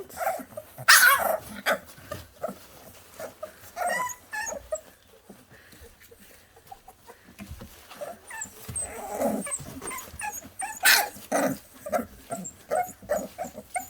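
A litter of five-week-old puppies playing, with scattered short yips, whimpers and squeals and a few louder yelps, one about a second in and another near the end.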